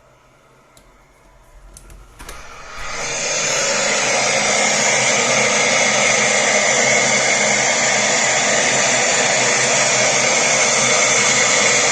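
White noise from a noise machine, faint and muffled at first, then after a few clicks it swells within about a second to a loud, steady hiss. This is the sound of an airtight push-out window being opened on the noise.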